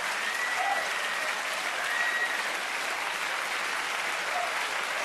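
Audience applauding steadily after a stage performance, with a couple of faint high whistled tones in the first half.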